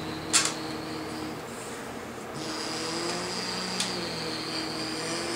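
Toy dump truck's electronic sound module playing a truck sound effect: a steady electronic engine-like hum that steps in pitch, with a thin high whine and a sharp click about a third of a second in.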